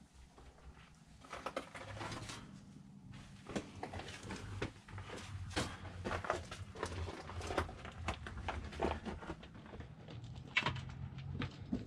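Irregular scuffs, scrapes and knocks of a climber working through a narrow rock tunnel, with gloved hands, shoes and gear rubbing and knocking against the rock, starting about a second in.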